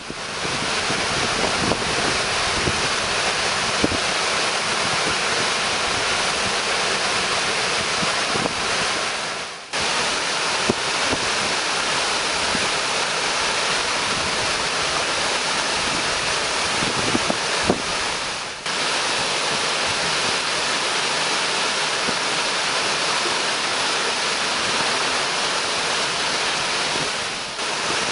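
Steady rushing roar of a 30 m two-tier waterfall pouring into a large plunge pool. The sound dips briefly about ten seconds in and again a little past halfway.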